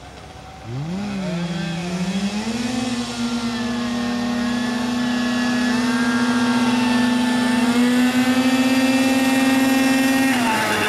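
Engines of two 6x6 amphibious ATVs launching side by side in a drag race. They rev up sharply about a second in, waver, then hold a steady high pitch at full throttle, and drop off near the end.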